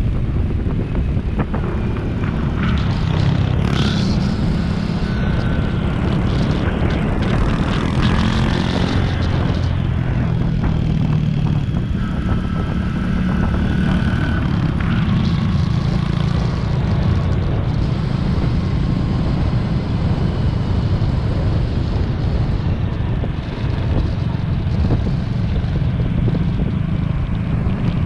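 Small motorcycle engine running steadily while riding along the road, with wind rushing over the microphone.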